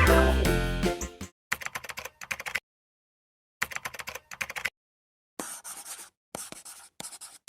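Background music fades out in the first second. Then come several short spells of quick paper clicking and rustling, separated by dead silence, as a folded origami paper magic cube is turned and flipped in the hands.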